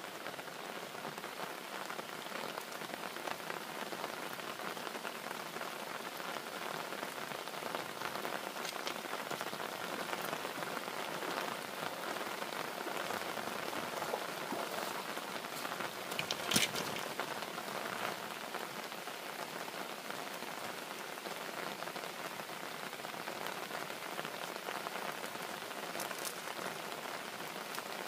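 Steady rain falling, with one sharper knock or splash about sixteen seconds in.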